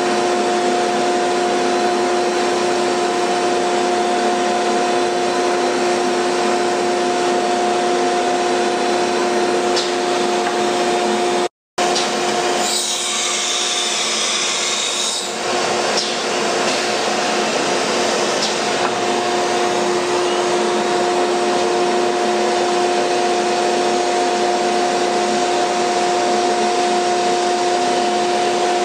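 A WO-1325 ATC CNC router's 5.5 kW water-cooled spindle running at 15000 RPM with a steady whine while an end mill cuts MDF, over the steady rush of dust extraction through the spindle's dust shoe. A little before halfway the sound cuts out for a moment, then a brighter hiss comes in for about three seconds before the steady running returns.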